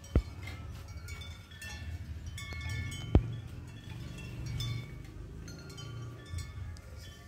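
Chimes ringing at scattered pitches, with two sharp clicks, one just after the start and one about three seconds in.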